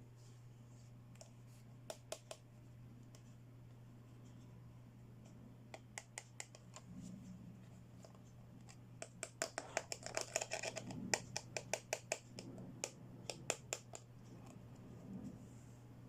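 Small plastic toy accessories and packaging being handled by hand: scattered light clicks and scratching, with a quick run of clicks and scraping in the middle, over a steady low hum.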